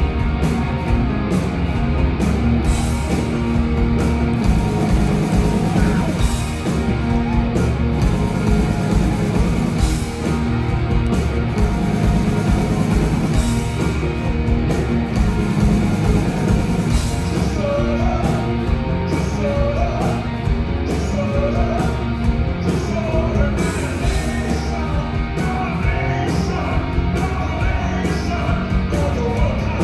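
Live rock band playing at full volume, with electric guitars, bass and drums. A male singer's voice comes in over the band in the second half.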